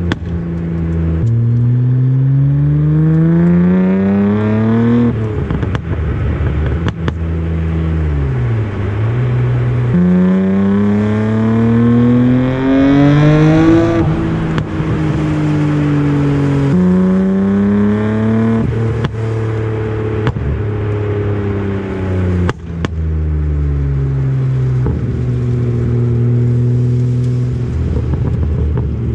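Nissan Skyline R34 GT-R's tuned RB26DETT twin-turbo straight-six, with a 3-inch exhaust, accelerating hard. The revs climb in three pulls, each cut off by a sudden drop at the shift. After the third, the engine settles to a steadier note that slowly falls as the car slows.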